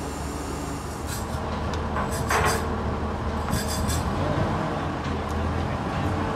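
Workshop machinery running with a steady low drone, broken a few times by short bursts of light metallic clinking and one louder clank about two and a half seconds in.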